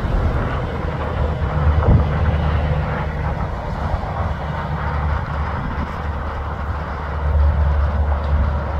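Heavy tanker truck's diesel engine running steadily as it drives by, a deep drone with tyre and road noise over it.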